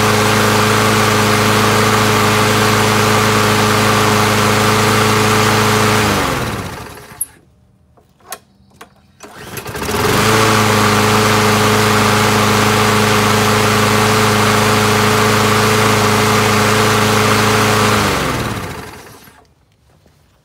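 Troy-Bilt push mower's Briggs & Stratton single-cylinder engine running steadily and evenly, with no sputtering, after its clogged carburetor fuel inlet was cleaned. About six seconds in it is shut off and winds down, falling in pitch, to a stop; it starts again about ten seconds in, runs steadily, and is shut off and winds down once more near the end.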